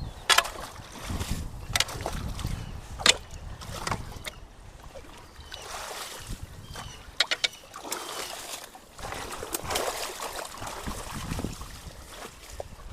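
Water splashing and sloshing, with several sharp splashes spread through, over running water with a low rumble, as debris is worked loose from a clogged culvert.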